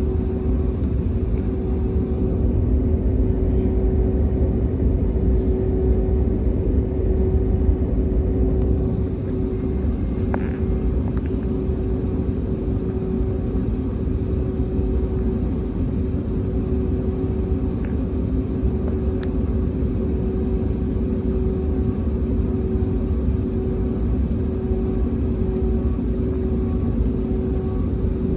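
Cabin noise of an Airbus A321neo taxiing: a steady low rumble from the engines and airframe with a constant droning tone over it, and a couple of faint clicks.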